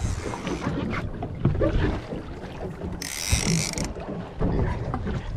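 Fishing reel being cranked with a clicking, ratcheting mechanism as a hooked fish is reeled up, over wind and water noise on the boat. A short burst of hiss comes about three seconds in.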